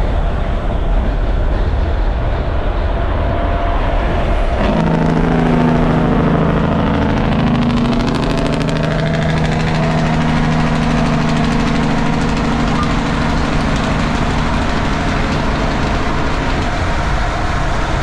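Semi truck driving, heard from inside the cab: a heavy low rumble throughout, with a steady engine drone coming in about four or five seconds in and holding.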